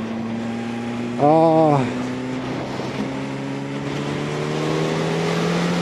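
Yamaha R1 inline-four engine running at a steady cruise under wind noise, its pitch slowly rising in the second half as the bike picks up speed. A brief vocal hum from the rider comes about a second in.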